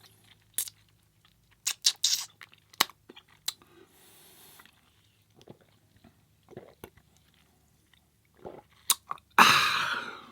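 Close-miked chewing of a sauced burger: scattered wet smacks and soft crunches at irregular moments. Near the end comes one loud, sudden bodily burst that fades over about a second.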